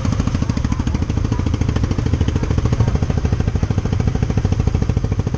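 Yamaha Aerox scooter engine running while riding, a rapid, even pulsing that is strongest in the low range.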